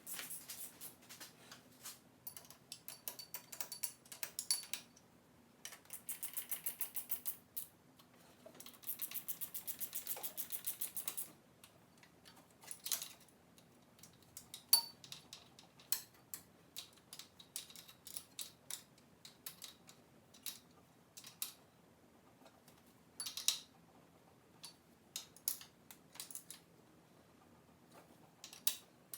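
Socket ratchet clicking in two quick runs of a few seconds each, among scattered light metallic clicks and taps of tools and bolts, as new bolts are run in to fasten the water pump.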